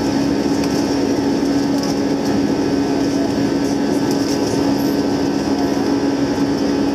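Airbus A320 jet engines running at high power during takeoff: a loud, steady drone with an even hum.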